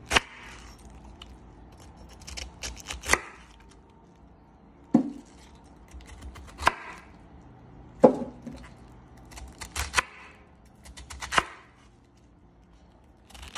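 Chef's knife slicing through a raw head of cabbage and striking a wooden cutting board: sharp cuts every second or so at an uneven pace, each with a crisp crunch of the leaves.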